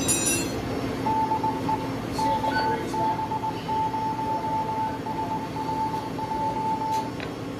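Electronic beep tone from the GMRS repeater: one steady pitch switched on and off in uneven long and short beeps for about six seconds, starting about a second in. Under it runs the steady hum of machinery.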